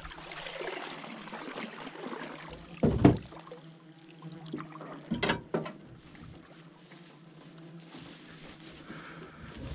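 Boat motor running with a steady low hum, with a loud knock about three seconds in and another about five seconds in.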